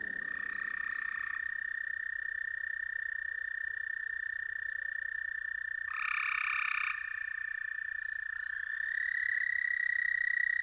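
Frogs or toads calling: a continuous high trill runs throughout, and shorter, fuller calls join it twice, about half a second in and again about six seconds in.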